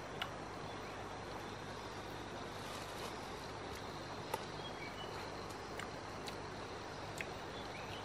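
Steady rainforest ambience, an even hiss, with a few short high chirps and scattered small clicks, the sharpest about four seconds in, as a small wild fruit is pulled apart by hand and eaten.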